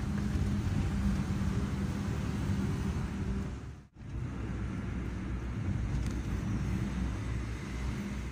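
Steady low vehicle rumble with a faint engine hum. The sound cuts out for a moment about four seconds in, then the same kind of rumble resumes.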